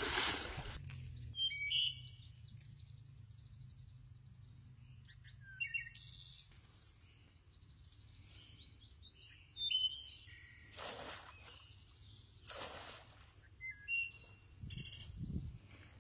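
A splash as a bunch of bananas hits a muddy irrigation channel right at the start. Then birds chirp in short, scattered calls, with a few brief noisy bursts partway through.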